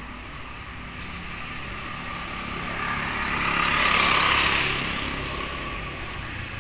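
Aerosol antiseptic wound spray hissing onto a cat's wound: a short burst about a second in, then a longer hiss that swells and fades around the middle.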